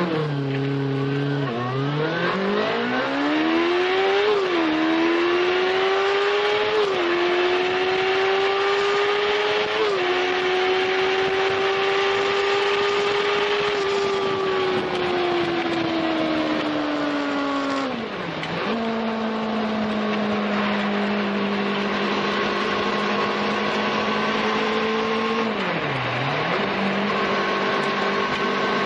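1989 Honda CB1's 399 cc inline-four on its stock exhaust, accelerating hard from a standstill and revving high, with quick upshifts in the first ten seconds. It holds high revs, eases off, then drops to a steady lower-rev cruise a little past halfway, with one more brief dip in revs near the end.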